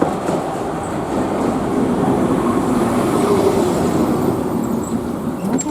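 Hankai Tramway streetcar running on its rails: a steady rumble, with a faint whine in the middle.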